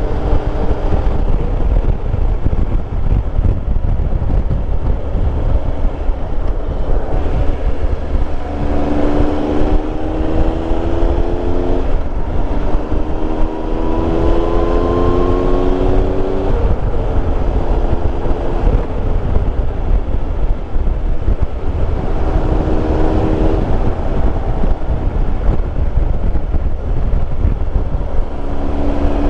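Triumph Tiger Explorer 1200's three-cylinder engine under way, heard over heavy, steady wind and road rumble on the microphone. About a third of the way in, the engine note climbs, drops at a gear change and climbs again; it surfaces briefly a few more times later.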